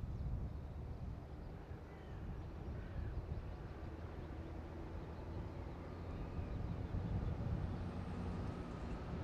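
DB class 232 "Ludmilla" diesel locomotive's Kolomna V16 two-stroke engine running with a low, steady drone as it approaches hauling a freight train, getting louder in the second half. A few faint bird calls sound in the background.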